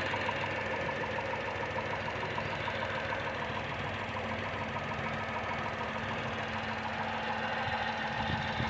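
Tata Tiago XZ+ BSVI's 1.2-litre three-cylinder Revotron petrol engine running steadily, with a fast, regular knocking tick over its hum. The owner reports it as a sudden knocking at only 2,900 km.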